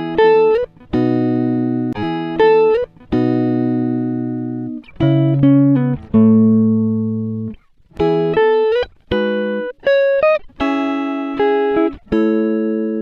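Background music: a plucked guitar melody in short phrases, each note starting sharply and fading away.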